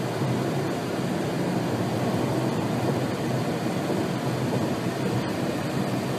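Steady road and wind noise heard inside the cabin of a car driving at speed.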